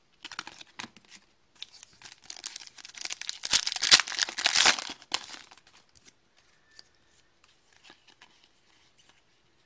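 A hockey card pack wrapper being torn open and crinkled for a few seconds, loudest around the middle, then faint clicks and rustles as the cards are handled.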